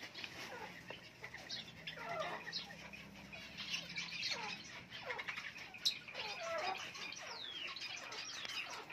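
Chickens squawking in the background: a scattered series of short calls that fall in pitch, some high and thin, some lower.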